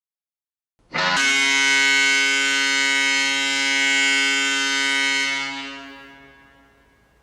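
An NHL arena goal horn sounding one long, steady blast. It starts about a second in and fades away near the end.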